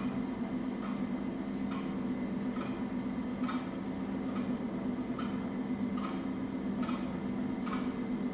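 ERN 150 coil winding machine running slowly and steadily, a motor hum with a light tick repeating a little more often than once a second as it winds a coil.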